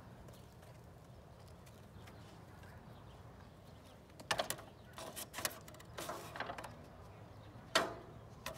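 A goat noses up against the recording phone, making a run of short knocks and rubbing sounds on the microphone that start about halfway through, after a few seconds of low steady hum.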